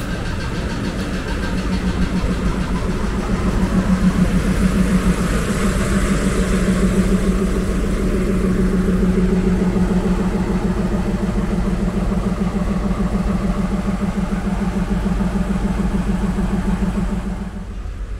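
Diesel locomotive engine, a JR Hokkaido DE15, running close by with a steady low drone that swells a little a few seconds in and drops away just before the end.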